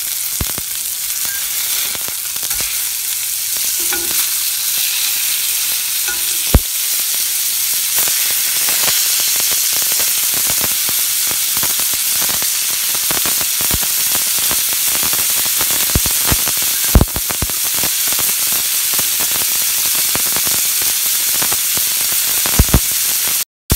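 Burger patties frying in a skillet, going from raw to browned: a steady high sizzle with constant crackling of fat and a few sharp pops, the loudest about six and a half and seventeen seconds in.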